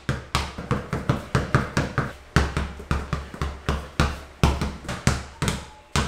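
Basketballs dribbled fast and low on a tiled floor: a quick, uneven run of sharp bounces, about four a second, each with a low thud and a short echo of a small room.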